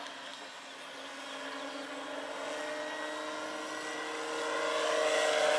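Large electric RC scale model of an AS-350 Ecureuil helicopter (2.5 m rotor) in flight: steady whine of the electric drive with rotor noise, growing louder over the last second or so.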